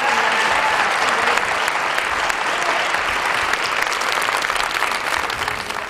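Theatre audience applauding, a dense clapping that eases off slightly near the end.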